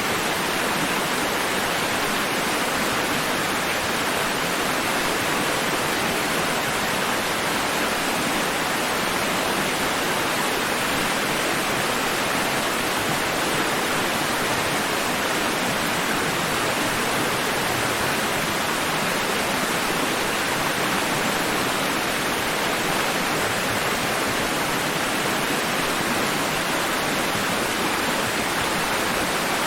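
Sea waves washing against rocks, heard as an even, steady rush of water with no distinct surges or breaks.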